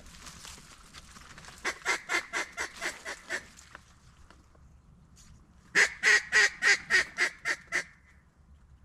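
Two runs of quick, evenly spaced hen-mallard quacks, about nine in the first and about ten in the second, which is louder and comes about two seconds after the first ends.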